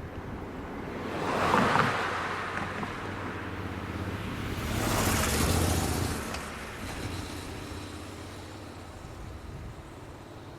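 Two road vehicles passing one after the other, each a swell of tyre and engine noise that rises and fades, the first about a second and a half in and the second, longer and lower, around five to six seconds in.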